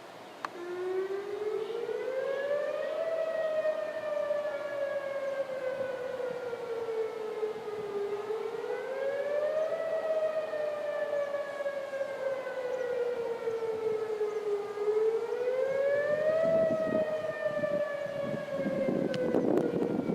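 Outdoor tornado warning siren sounding a rising-and-falling wail: the pitch climbs for about two seconds, then sinks slowly, three times over. A single click comes just before it starts, and gusts of wind buffet the microphone near the end.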